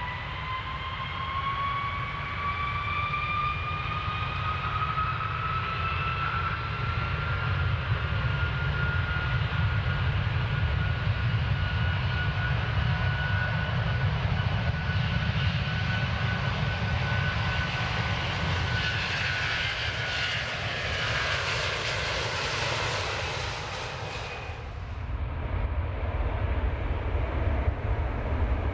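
Airplane taking off: the engines' whine climbs slowly in pitch over a steady low rumble while a rushing noise builds. About twenty-four seconds in, the high whine and rush cut off abruptly, leaving the low rumble.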